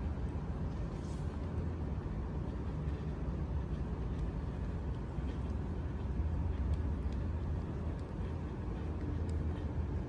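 Steady low rumble of urban background noise, with a few faint ticks.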